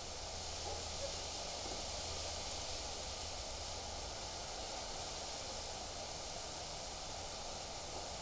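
Steady wind rustling through trees and leaves, with a low rumble of wind on the microphone.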